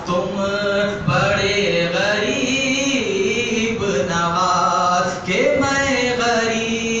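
A man singing an Urdu devotional manqabat to Gareeb Nawaz (Khwaja Moinuddin Chishti) solo into a microphone, in long, wavering melodic phrases.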